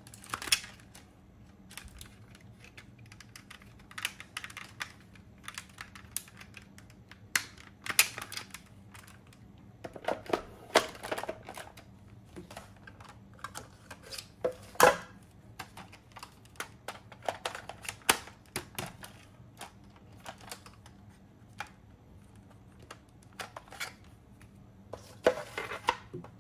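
Irregular clicks, taps and knocks of hard plastic being handled: toy RC motorcycles and their display stands picked up, turned over and set down on a plastic-sheeted table, with one louder knock about fifteen seconds in.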